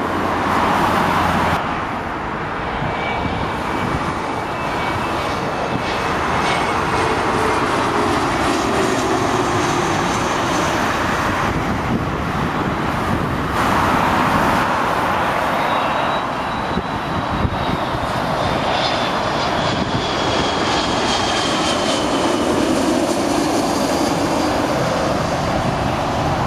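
Jet airliners passing low overhead on final approach to land, including a KLM Fokker twin-jet with tail-mounted engines: a loud steady rush of jet noise with a thin whine that slowly falls in pitch as each aircraft goes by.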